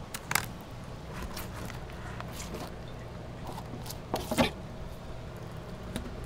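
Fillet knife working through a mutton snapper fillet with its scales left on: a few short cutting and scraping sounds, the loudest a little after the start and about four seconds in, over a steady low hum.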